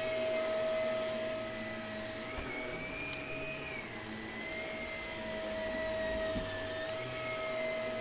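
Shark upright vacuum cleaner running while pushed over carpet: a steady motor whine with a higher tone that slowly rises and falls.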